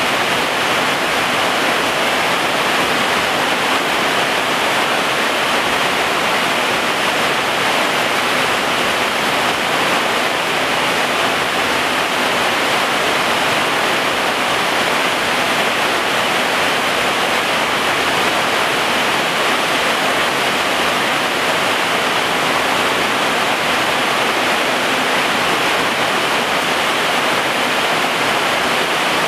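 Heavy rain pouring steadily: an even hiss that holds without any let-up.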